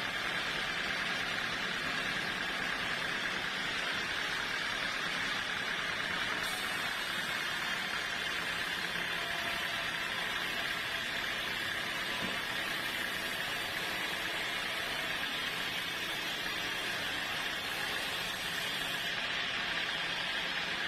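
Sawmill saw running steadily: an even mechanical noise with a steady high tone that does not change.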